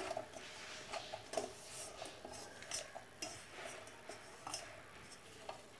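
Soft atta dough being pressed and kneaded by hand in a stainless steel bowl: faint, scattered knocks and scuffs of the metal bowl.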